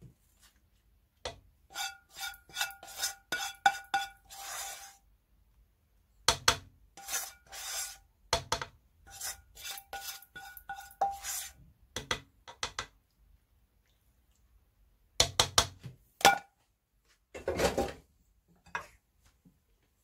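A spoon scraping and knocking against a metal cooking pan in quick strokes, the pan ringing with each one, as chicken curry is scraped out of it. The strokes come in several runs with short pauses between them.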